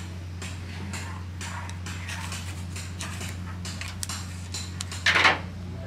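Carpenter's pencil scratching marks onto wooden rudder timber, with light clicks and taps of a steel square against the wood. A longer scrape about five seconds in is the loudest sound. A steady low hum runs underneath.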